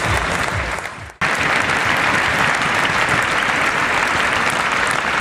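Crowd of spectators applauding: dense, steady clapping that cuts in abruptly about a second in after a brief fade.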